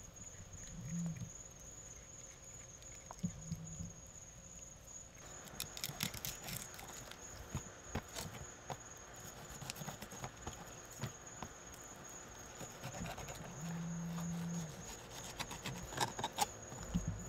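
Insects chirring steadily at a high pitch. From about five seconds in, a fillet knife cuts fish on a plastic cooler lid in a run of sharp clicks and scrapes.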